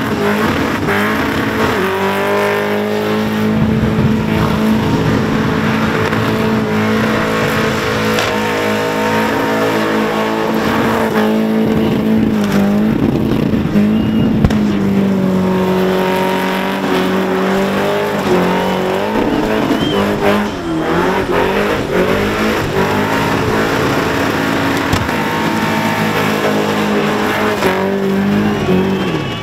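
Holden Commodore ute's engine held at high revs through a long burnout, rear tyres spinning on the pavement. The revs dip briefly and come back up twice, about twelve and twenty seconds in.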